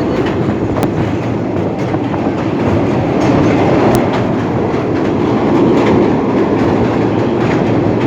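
Train running along the track: a steady rumble of wheels on rails, with a few sharp clicks.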